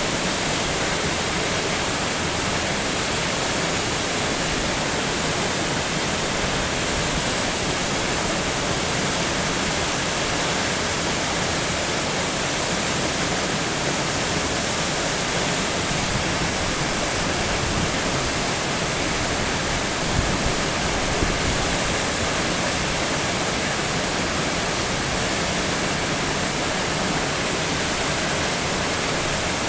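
Inversnaid waterfall pouring over rock into its plunge pool: a steady, unbroken rush of falling water.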